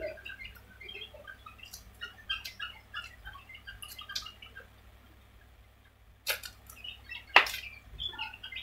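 A person eating martabak by hand, chewing quietly, with faint small-bird chirps throughout and two sharp clicks near the end.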